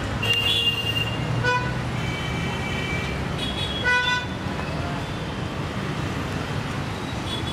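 Busy road traffic: vehicle engines running steadily, with short horn honks about one and a half seconds in and again about four seconds in, and other higher horn beeps in between.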